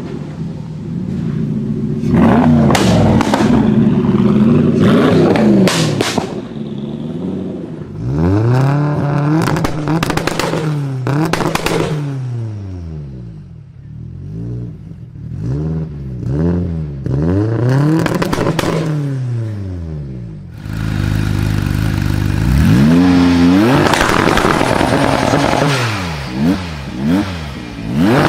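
A performance car's engine revved over and over, the pitch climbing and falling with each blip, with sharp exhaust pops and crackles as the revs drop.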